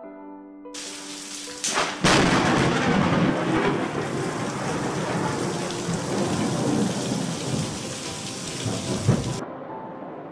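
Close lightning strike: heavy rain hiss, then a sharp crack and a very loud thunderclap about two seconds in, followed by long rolling thunder over the rain. A second crack comes near the end, and the storm sound then cuts off suddenly.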